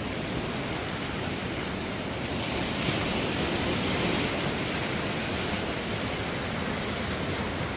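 Ocean surf washing against a rocky beach: a steady rushing that swells a little a few seconds in.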